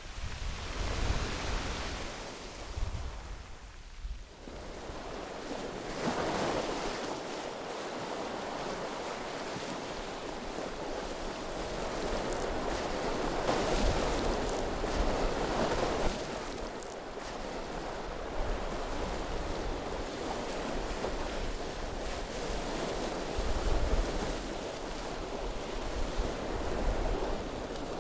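Sea waves breaking and washing up a gravel beach, surging several times, strongest in the middle. Wind rumbles on the microphone now and then.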